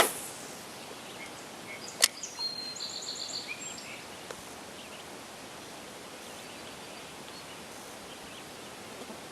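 A sharp click, then another about two seconds later, followed by a short run of quick high chirping notes from a bird, over a faint steady outdoor background.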